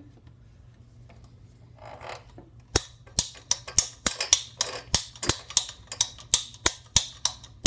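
A rapid run of sharp clicks, about three a second, some in close pairs, starting about three seconds in.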